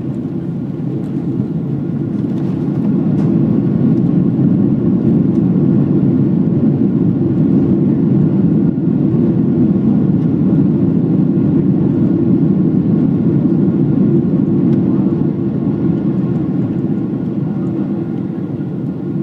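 Cabin noise of a Boeing 767-300ER on its landing rollout: the engines in reverse thrust make a loud, steady, deep noise that swells a few seconds in and eases off near the end.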